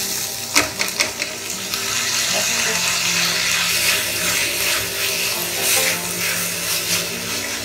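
Wet, drained basmati rice tipped into hot oil in a pressure cooker and sizzling steadily as a wooden spoon stirs it through the peas and onions. A couple of sharp knocks come about half a second and a second in.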